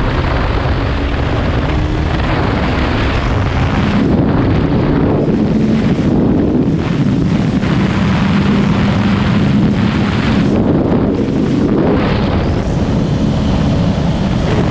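KTM Duke 125's single-cylinder four-stroke engine running under way, its pitch fairly steady and climbing near the end, under heavy wind noise buffeting the microphone.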